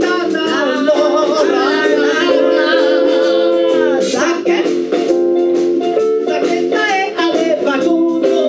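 Live band music: a vocalist singing over electric bass guitar, guitar and a steady drum beat.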